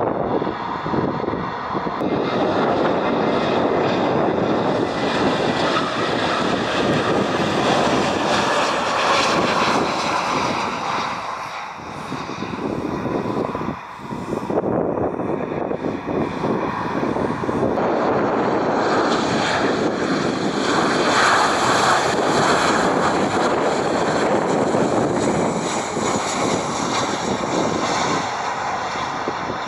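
Jet engines of Airbus airliners running on the runway, a loud steady roar. It dips briefly around 12 to 14 seconds in, then a second aircraft's engine roar takes over.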